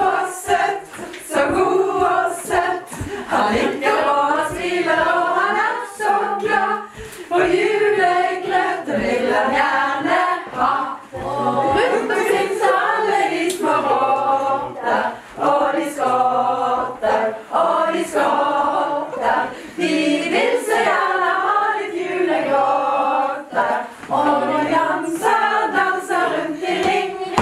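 A group of people singing a Christmas carol together, unaccompanied, in many voices at once.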